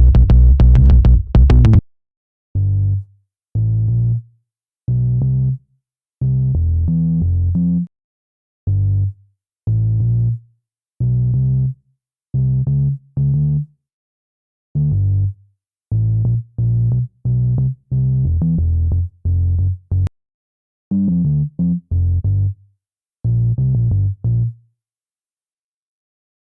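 Electronic bass loops: a loop with a drum machine backing cuts off about two seconds in, then a bass line plays alone in short, low notes with silent gaps between them, stepping up and down in pitch.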